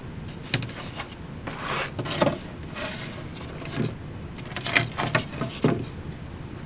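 Wicker picnic basket being handled and positioned: irregular rubbing and scraping with a few light knocks and clicks.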